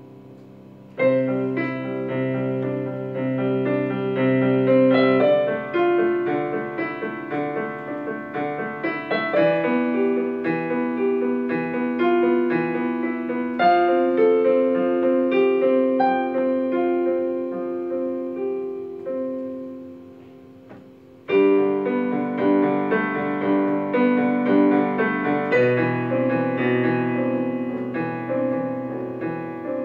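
Solo piano improvisation, chords and melody notes ringing over one another. A phrase begins with a sharp entry about a second in and dies away to near quiet around twenty seconds in. A new phrase then starts strongly about a second later.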